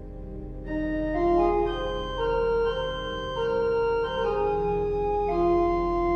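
Foley-Baker pipe organ playing slow, sustained chords over a held low bass note. Under a second in, a fuller, brighter registration with higher notes comes in, and the chords change every second or so.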